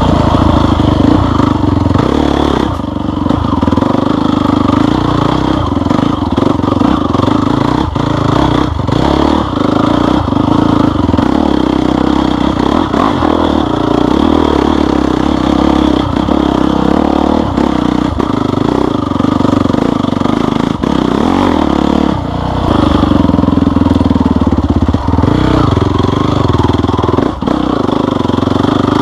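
Off-road vehicle engine running under changing throttle on a trail ride, with frequent knocks and rattles from the bumpy ground.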